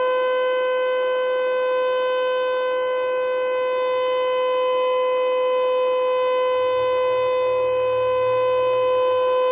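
Federal Signal Eclipse8 electronic outdoor warning siren sounding a steady tone during a test: one pitch held with strong overtones, neither rising nor falling and even in loudness.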